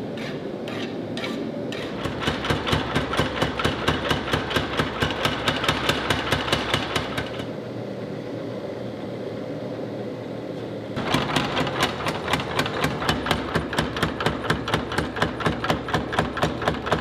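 Power hammer forging hot steel. Its motor runs steadily while the ram strikes in an even run of blows, about four a second. The blows stop for a few seconds with the motor still running, then start again about eleven seconds in.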